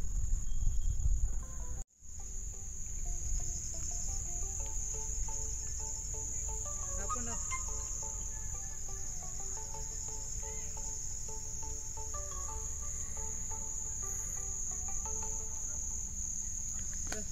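Steady, high-pitched chorus of crickets trilling without a break, cut by a brief dropout about two seconds in.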